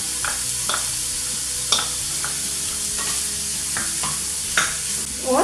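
Chopped vegetables sizzling in hot oil in a kadhai as a spatula stirs them, with occasional sharp taps and scrapes of the spatula against the pan.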